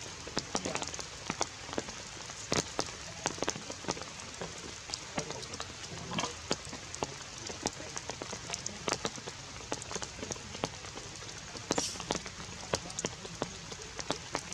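Steady outdoor hiss with many irregular sharp ticks and taps scattered through it.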